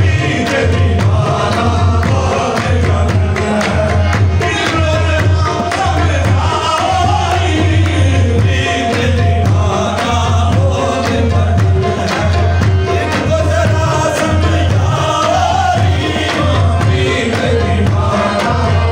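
Qawwali: several voices singing a Sufi devotional song together over a steady beat of sharp percussive strokes.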